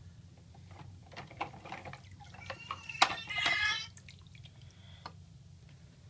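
Water sloshing and dripping in a filled sink as hands move plastic toy trucks about in it, with small clicks and knocks of the toys. A short high-pitched squeal about three seconds in.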